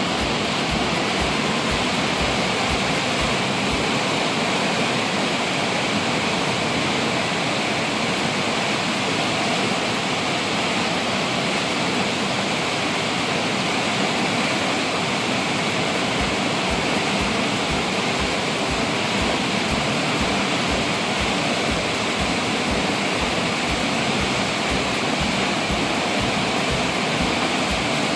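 Muddy floodwater rushing and churning through a spillway as water is released to keep the flooded lake from overflowing, a loud, steady rush of white water.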